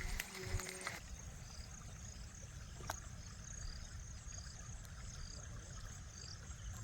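Outdoor riverside ambience: a steady low rumble with a faint high insect chirp repeating a few times a second, and a couple of light clicks.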